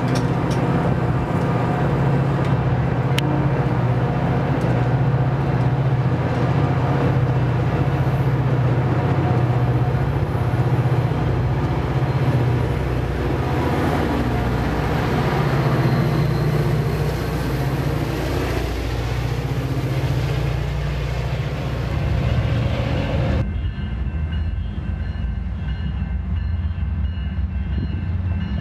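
Metra commuter train of stainless-steel bilevel gallery cars running past on the rails: a steady, loud rumble of wheels and running gear. About 23 seconds in it cuts abruptly to a duller, slightly quieter steady rumble of another train approaching.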